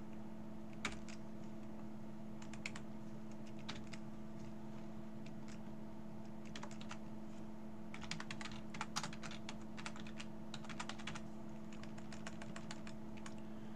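Computer keyboard being typed on: a few scattered keystrokes, then a quick run of keys from about halfway through, over a steady low electrical hum.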